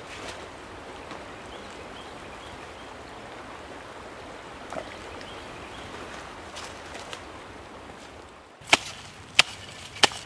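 Three sharp chopping strikes of a hand tool into the dirt near the end, about two-thirds of a second apart, digging out a hole. Before them only a steady outdoor hiss.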